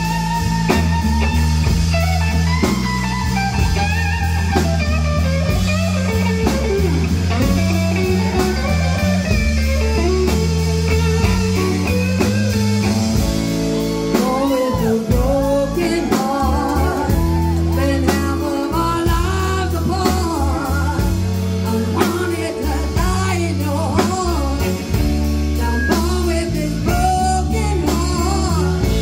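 Live blues band playing: electric guitar, electric bass and drum kit, with harmonica and a woman singing. Lead lines bend and waver in pitch through the second half over a steady bass line.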